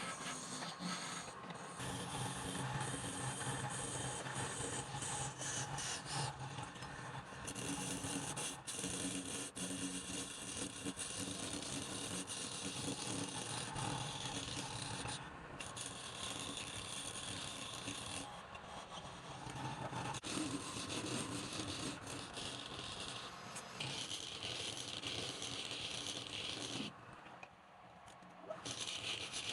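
A wood lathe spinning a wooden blank while a turning tool scrapes and cuts against it, with rattling and scattered clicks; the sound drops off briefly near the end.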